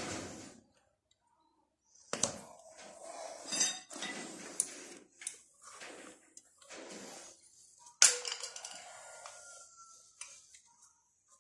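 Metal gear-shift parts on a Yağmur 510 walking tractor's gearbox clinking and clanking as they are handled and fitted by hand, with a sharp clank about eight seconds in, the loudest.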